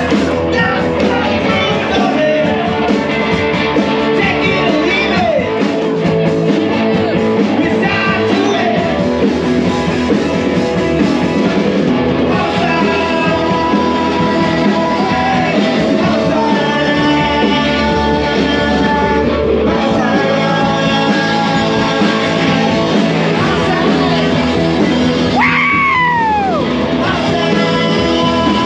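Loud music with singing, continuous throughout.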